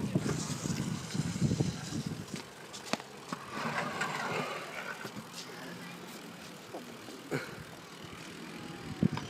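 Bike and scooter wheels rolling over skatepark concrete, louder in the first two seconds and then fading, with a few sharp clacks spread through.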